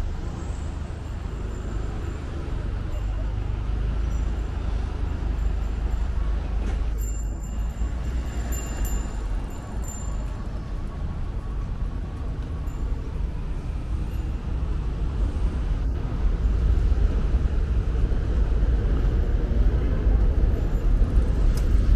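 City street traffic: vehicles running past with a steady low rumble, growing louder over the last few seconds.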